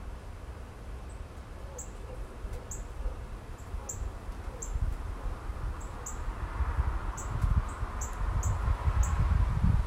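A small bird chirping repeatedly: short, high chirps at uneven intervals, one every half second to a second. Under them runs a low rumble that grows louder toward the end.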